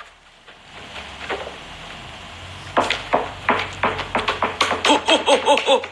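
A woman laughing, starting about three seconds in and building to a quick run of short laughs near the end.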